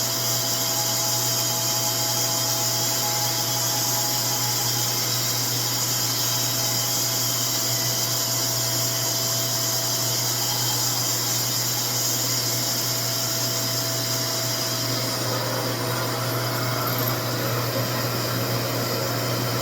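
RevAir reverse-air hair dryer running steadily, its suction motor giving a constant loud whirring hum with a hiss of rushing air.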